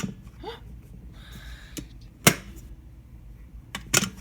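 A few sharp clicks and knocks as an electric kettle is handled, the loudest a little past halfway and a quick pair near the end, with faint rustling in between.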